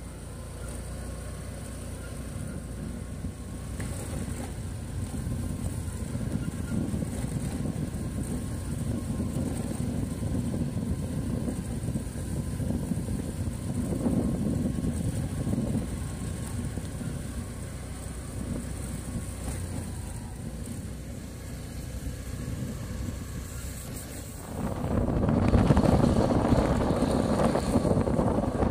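Motor scooter riding along a dirt track: a steady low engine and road rumble. About 24 seconds in it jumps abruptly to a louder, rougher rumble.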